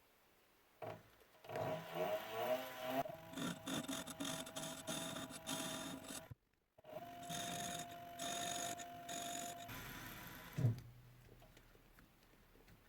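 Metal lathe cutting a collet blank: a continuous cutting noise with rattling knocks and a steady mid-pitched tone from the cut. It breaks off sharply about six seconds in, resumes, and ends with a single thump near eleven seconds.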